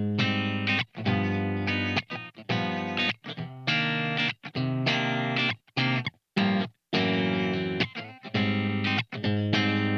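Soloking MT-1 Thinline electric guitar, a T-style thinline with a mahogany body and koa top, played through an amplifier in its clean sound: chords struck and held about a second each, cut off with short silences between them.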